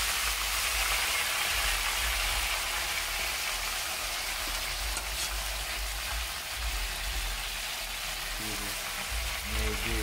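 Pieces of chicken back deep-frying in a pot of hot oil: a steady sizzle.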